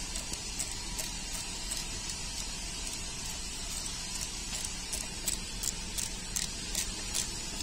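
Socket driver turning the bolt on a car AC condenser's pipe fitting, giving light clicks two or three times a second, coming closer together in the second half, over a steady background hiss.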